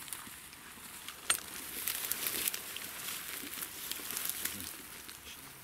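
Rustling and crackling of tall dry grass and weeds brushed by feet and legs walking through a field, with one sharp click about a second in.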